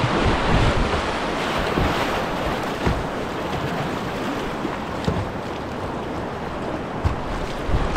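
River rapids rushing and splashing close around a kayak, with wind buffeting the microphone and a few short splashes along the way.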